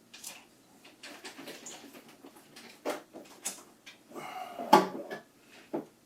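Plastic parts of a printer's housing knocking and clicking as the scanner unit is handled and pivoted back into place, with one sharper knock near the end.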